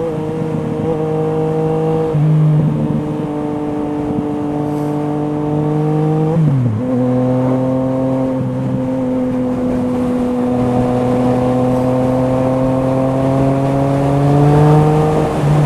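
Yamaha MT-09's inline three-cylinder engine through an Akrapovič exhaust, heard from on the bike while riding. The engine note holds steady or climbs slowly, and drops sharply with a gear change about six and a half seconds in and again near the end.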